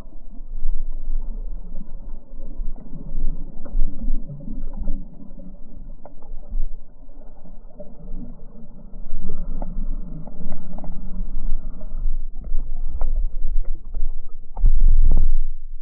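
Muffled underwater rumble and swish of pool water stirred by swimmers, picked up by a submerged camera, with scattered small clicks and a louder low rush near the end.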